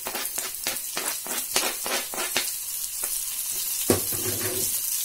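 Chopped onion, garlic and ginger frying in hot ghee in a pan: a steady sizzling hiss with quick crackling pops, and one louder knock about four seconds in.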